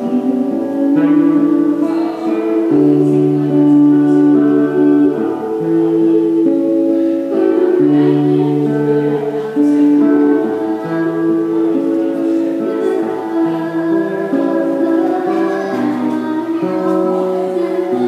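A woman singing a slow song in long held notes, accompanied by an acoustic guitar.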